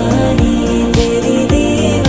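Background music with a steady beat, about two beats a second, under sustained melody notes.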